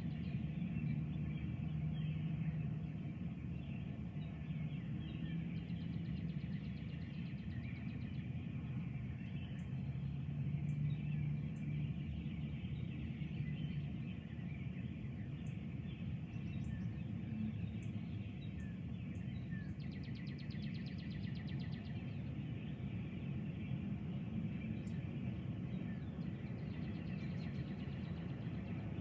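Steady outdoor ambience at dawn: a low, even rumble and hum with faint bird calls now and then.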